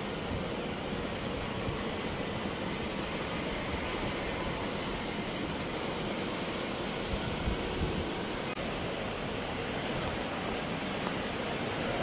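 Steady rainfall, an even hiss of rain, with a brief dip about eight and a half seconds in.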